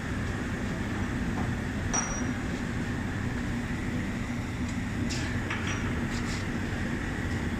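Foundry machinery running with a steady low drone. A few light metallic clinks come about two seconds in and again a few times around five to six seconds in.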